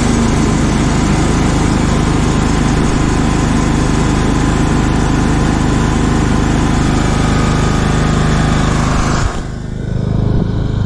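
Cub Cadet LTX 1045 hydrostatic lawn tractor running at speed with the mower deck cutting. About nine seconds in the cutting noise drops away suddenly and only a lower engine hum is left, which the owner finds is the deck belts having quit spinning.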